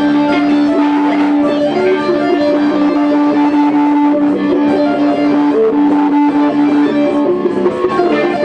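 Music featuring guitar, over one low note held steady that breaks off about seven seconds in.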